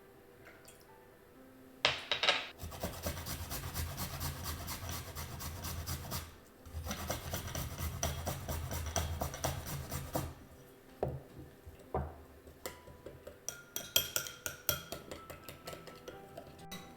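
A kitchen utensil working the soy-ginger glaze, with rapid, even scraping strokes in two runs of about four seconds each, then scattered clinks and taps near the end.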